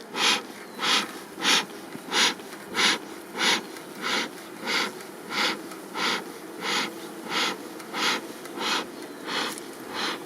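A beekeeper's smoker worked by its bellows in a steady rhythm: a hissing puff of air about every two-thirds of a second.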